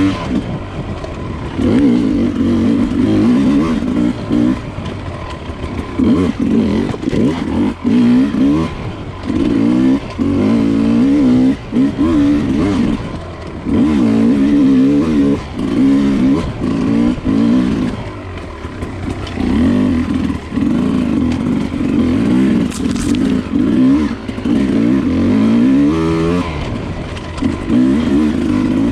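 Dirt bike engine under hard throttle on a trail, its pitch climbing and dropping over and over as the throttle opens and closes.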